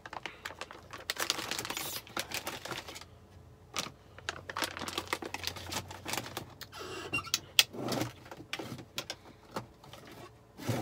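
Irregular clicks and knocks as hard frozen peach pieces are handled and dropped into a plastic blender cup.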